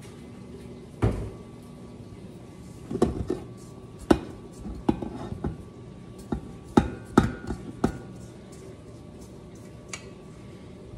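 Stainless steel stand-mixer bowl being lifted and handled as dough is scraped and tipped out of it: a series of sharp clanks and knocks, one about a second in and most of them between about three and eight seconds in.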